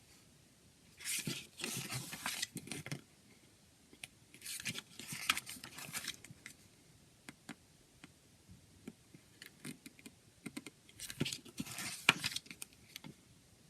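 A CD and its packaging being handled: three spells of scraping and rustling of plastic and paper, with scattered small clicks in between.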